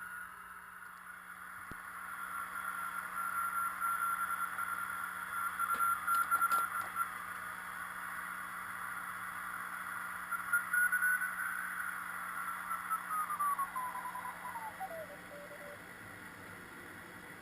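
Receiver audio from a Frog Sounds QRP CW transceiver on 40 m: band hiss with a steady whistle-like beat note from a signal. About two-thirds of the way through, the note falls steadily in pitch as the receiver is tuned across it. A few short clicks are heard near the middle.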